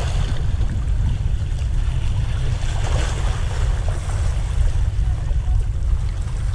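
Wind rumbling steadily on the microphone over small waves splashing and washing against the rocks of a stone breakwater, with a couple of slightly bigger splashes near the start and about three seconds in.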